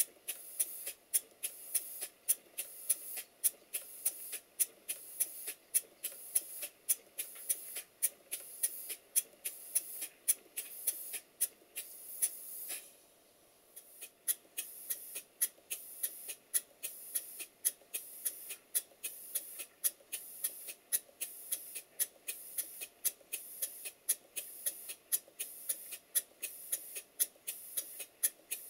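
Stuart Twin Victoria twin-cylinder model mill engine running evenly on compressed air: a regular rhythm of hissing exhaust puffs, about two to three a second, over a faint steady mechanical running noise. The puffing drops out briefly about halfway through.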